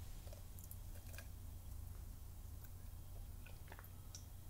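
Quiet room tone: a low steady hum with a few faint, short ticks.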